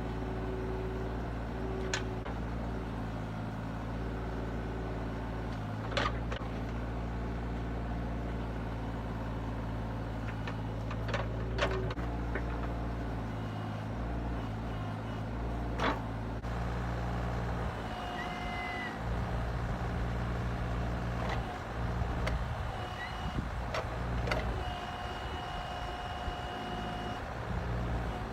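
Heavy machine's engine running steadily, with sharp knocks now and then. In the last third, high steady whines come and go over it.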